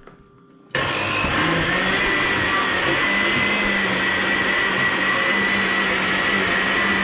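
Countertop blender switched on about a second in, its motor then running steadily at full speed with a high whine, pureeing boiled pumpkin in its cooking water.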